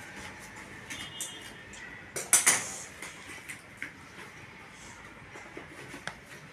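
A cardboard box being cut open with scissors and its flaps pulled apart: scattered snips, crackles and rustles of cardboard, with one louder rasp a little over two seconds in.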